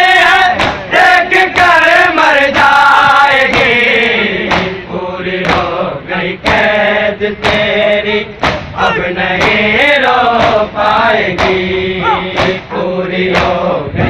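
A crowd of men chanting an Urdu noha (Muharram lament) together, with sharp slaps from chest-beating (matam) recurring in time with the chant.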